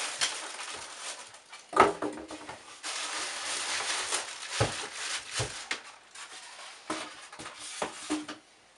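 Unpacking noises: polystyrene foam packing being pulled apart and a plastic bag rustling, with a few dull knocks as things are set down on the wooden desk.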